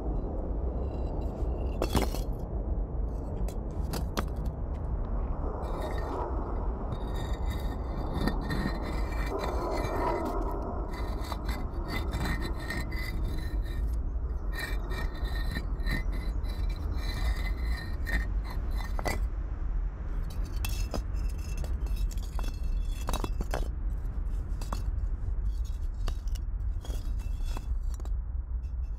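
Irregular scraping and rubbing of hard objects with sharp clicks scattered through, over a steady low rumble.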